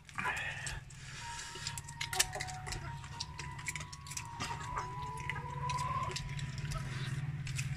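Close, crisp clicking and crunching as grilled field rat is torn apart by hand and chewed. Under it runs a steady low hum, and a thin whistle-like tone holds for several seconds before rising briefly at its end.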